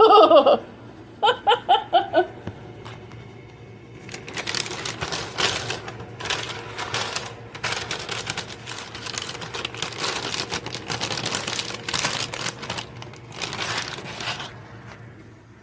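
Brown paper lunch sack being folded over at the top several times, the stiff paper crinkling and crackling in a long run of short bursts.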